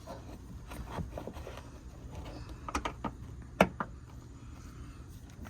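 Scattered clicks and knocks of car interior trim pieces being handled and pushed into place by hand, the sharpest knock about three and a half seconds in.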